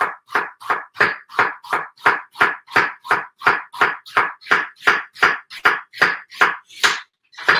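Kitchen knife slicing a peeled onion half into thin strips on a wooden cutting board: a steady rhythm of about three cuts a second, stopping shortly before the end.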